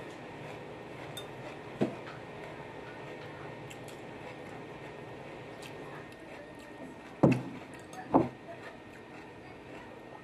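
Bowl and chopsticks being handled while eating: a light click about two seconds in, then two sharp knocks about a second apart, over a steady low background hum.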